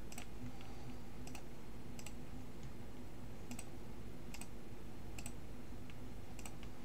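Computer mouse button clicked about seven times, roughly a second apart, over a faint steady hum.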